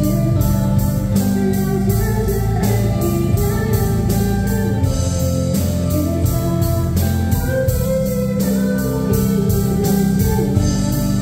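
Live pop-rock band playing: electric guitars, bass, keyboard and a drum kit keeping a steady cymbal beat of about two strokes a second, with a girl singing lead into a microphone over the PA.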